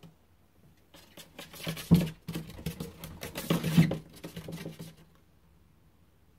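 An animal scratching and scurrying inside a wall: a quick run of small scrapes and knocks lasting about four seconds, loudest about two seconds in and again just before four seconds.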